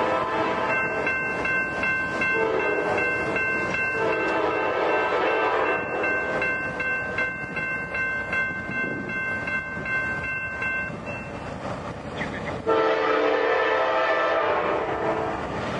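Diesel freight locomotive's multi-chime air horn sounding several blasts as the train approaches, with a long final blast near the end. A bell rings steadily under the first blasts and stops about 11 seconds in.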